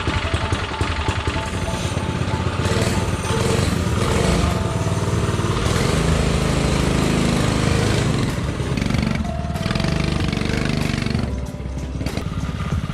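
Custom mini bike's small gas engine running as the bike is ridden, its speed rising and falling.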